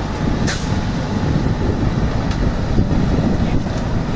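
Diesel engine of a self-loading concrete mixer running steadily, with a short hiss about half a second in.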